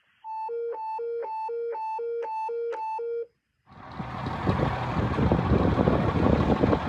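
An electronic hi-lo two-tone signal, about six quick high-low cycles at a bit over two a second, cuts off suddenly. After a brief gap, steady vehicle and road noise with a low engine rumble comes in and grows louder.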